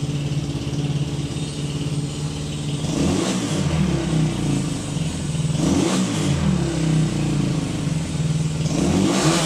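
Gato 250 cc motorcycle engine idling in neutral and revved three times with short throttle blips, each rising and then dropping back to idle.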